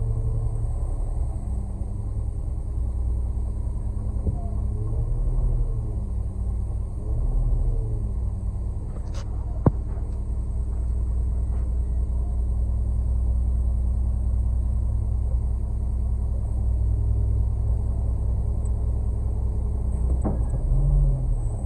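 Concrete mixer truck's diesel engine running with a steady low rumble, its revs rising and falling briefly twice early on. A single sharp click about ten seconds in.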